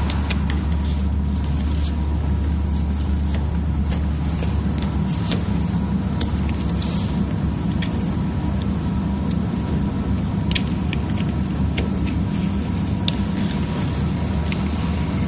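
A steady low rumbling hum with a faint steady whine above it, and scattered faint clicks and ticks.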